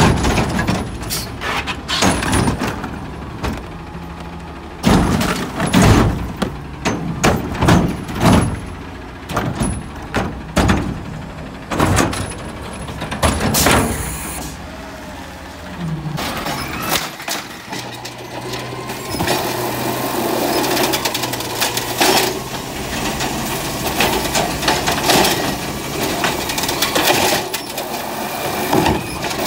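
Natural-gas garbage trucks emptying wheeled trash carts: repeated bangs and clattering as carts are tipped and trash drops into the container. A bit past halfway this gives way to the steady run of the truck's engine and hydraulics, with rustling trash, as an automated side arm lifts and dumps a cart.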